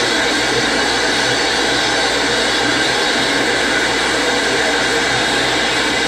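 Steady static hiss from a CB radio receiver on channel 6 (27.025 MHz), with no voice on the channel and a faint low hum underneath.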